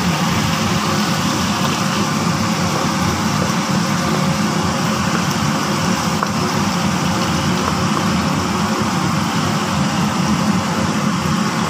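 Steady low hum with an even hiss over it, a constant kitchen running noise beside a pan of chicken cooking in tomato sauce on the stove.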